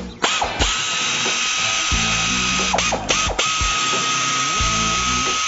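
Pneumatic air ratchet running at speed, spinning out body bolts: a steady high whine with air hiss. It cuts out briefly twice near the middle and starts again.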